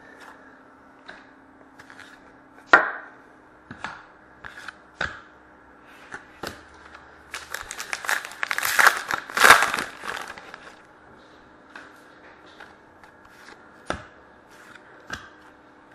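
Trading cards and their pack handled on a table: scattered light clicks and taps, with a burst of crinkling and tearing of a foil pack wrapper about halfway through.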